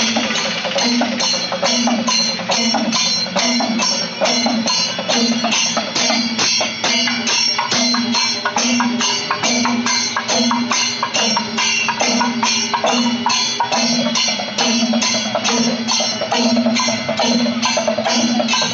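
Percussion music: drums and clacking strokes beating a steady, even rhythm.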